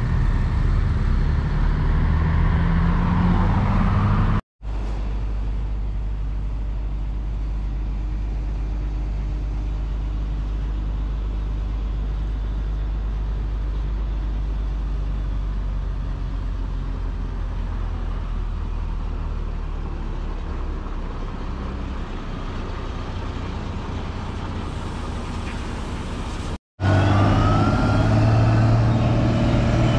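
Heavy diesel engines running. In the first few seconds trucks and road machinery are running, with a glide in pitch. For most of the middle there is a steady low rumble. Near the end a wheel loader's engine is working, with a whine rising over it.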